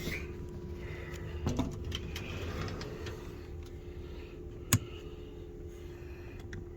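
Small rattles and clicks from things being handled, with one sharp click just after halfway, over a steady low hum.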